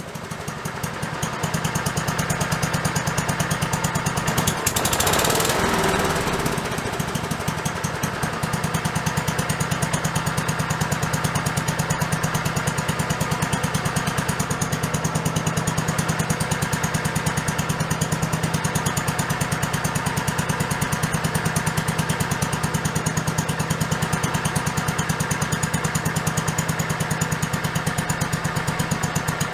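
Freshly restored Kohler K301 single-cylinder engine coming up to speed over the first couple of seconds on its test run, then running steadily with an even firing beat. About five seconds in, a louder noisy rush with a falling tone passes over it for a second or two.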